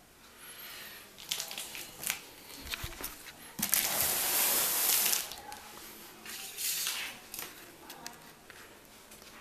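Cardboard TV carton being handled close to the microphone: rustling and scraping with a few sharp knocks, and one loud scrape lasting over a second about four seconds in.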